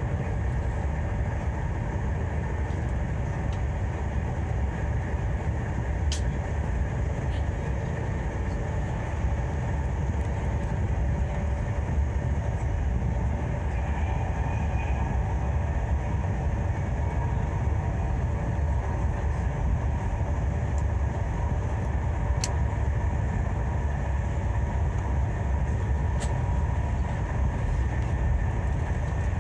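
Steady running noise of a Thalys high-speed train heard inside a passenger car: a constant low rumble, with a few short clicks along the way.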